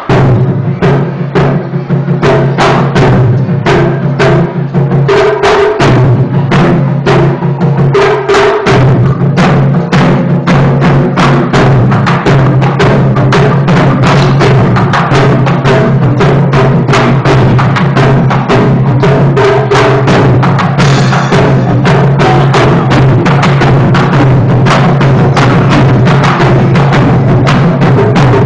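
Taiko ensemble drumming: several players beating barrel-shaped chu-daiko on slanted stands in a fast, driving rhythm of heavy strokes. The drumming is loud and comes in suddenly at the start.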